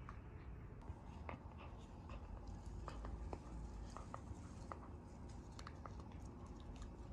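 Border collie gnawing a knotted cotton rope toy: faint, irregular clicks and crunches of teeth working the rope, over a low steady room hum.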